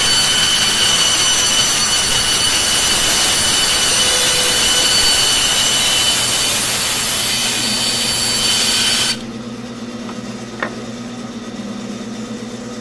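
Bandsaw blade cutting through a block of wood with a loud, high-pitched whine. The cut ends abruptly about nine seconds in, leaving the saw running free with a low steady hum and a couple of light clicks.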